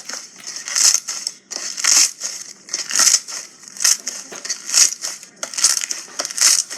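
Slime being squeezed and pressed by hand, making a noisy squish about once a second, seven times in a row.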